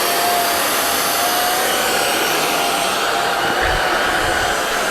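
Prettycare cordless stick vacuum running steadily: an even rush of air with a held motor whine.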